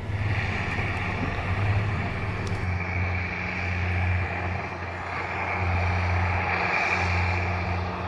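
Diesel engine of a large Versatile tractor running steadily, a low even hum.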